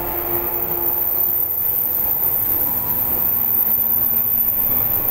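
JR 415 series electric multiple unit pulling out and running past close by: the motors and wheels on the rails make a dense running noise that grows louder over the first second, then holds steady.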